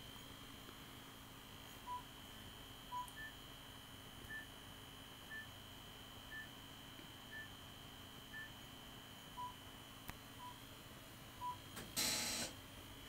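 Environmental control unit beeping as its menu scans: short electronic beeps about once a second, two lower, then a run of six higher, then three lower again. A brief loud burst of noise comes near the end.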